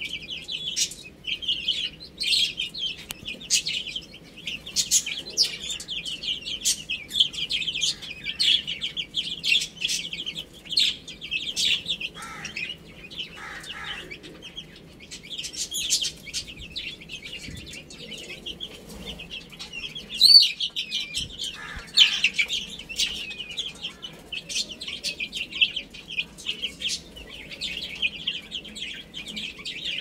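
Baby chicks peeping: many short high-pitched chirps overlapping without pause, with a few lower calls in the middle.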